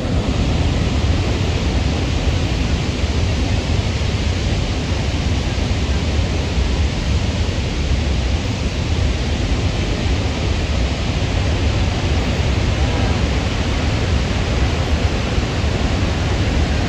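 Steady roar of Niagara Falls: a loud, unbroken rush of falling water, heaviest in the deep low end.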